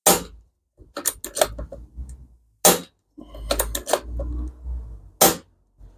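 A series of sharp metallic clicks and clacks from a gas-powered airgun being worked, single sharp ones and quick clusters of two or three, with a low rumble under some of them.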